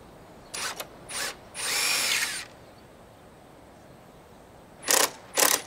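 Cordless drill-driver backing screws out of a metal gate hinge, run in short bursts: a few brief pulses, then one longer run of just under a second with its whine bending in pitch, then two quick bursts near the end.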